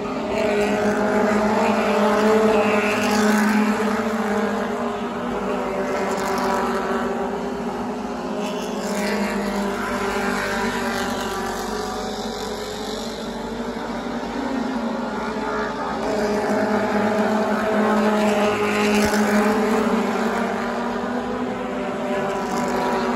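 A field of Stadium Stocks short-track stock cars running laps on the oval. The drone of many engines swells as cars come past the grandstand, about two seconds in and again in the second half.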